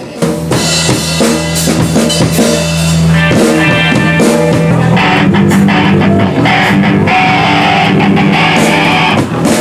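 Live band playing with electric guitars and a drum kit, the sound filling out about five seconds in.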